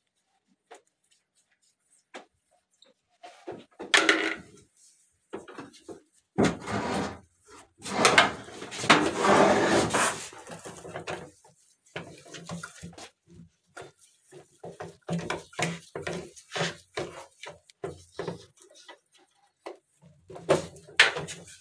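Clicks, knocks and clatter of hard plastic washing-machine casing and a screwdriver being handled while the machine's lid is taken apart. A few seconds in there is a longer stretch of loud rubbing and rustling, as the sleeve brushes close against the microphone.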